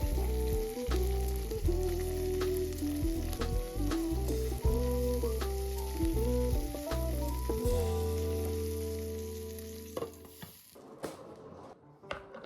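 Food sizzling as it fries in a pan, with a utensil stirring and scraping, over background music with a melody. The sizzling fades out about ten seconds in, and a few clinks follow.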